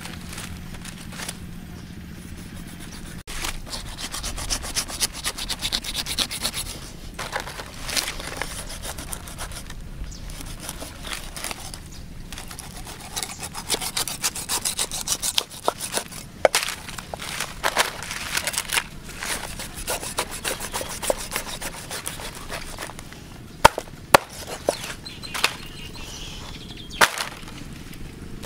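Cleaver scraping and cutting a stingray's wet skin on a wooden chopping block, in repeated short rasping strokes, with a few sharp knocks of the blade on the block near the end.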